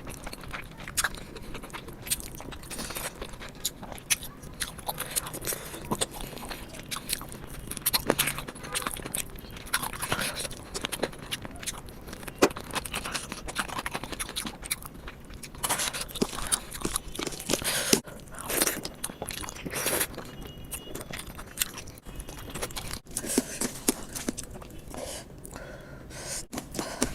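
Close-miked eating of rice and chicken curry: wet chewing with irregular crunches and scrapes.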